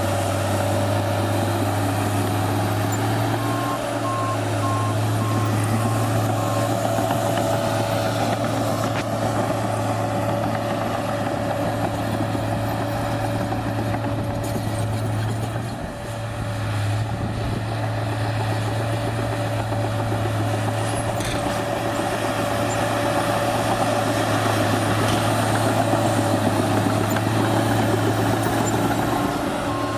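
New Holland D180C crawler dozer's diesel engine running steadily, with a reversing alarm beeping about four seconds in and again near the end.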